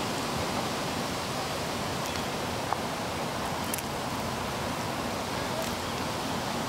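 Steady, even outdoor background hiss, with a couple of faint clicks.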